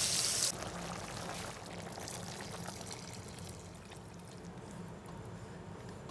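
Liquid being poured from a pot into a hot wok of frying onions, tomatoes and peppers. A loud hiss drops away about half a second in, leaving a steady pouring sound that slowly fades.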